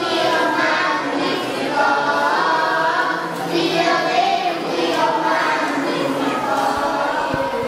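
Children's choir of girls and boys singing together into microphones.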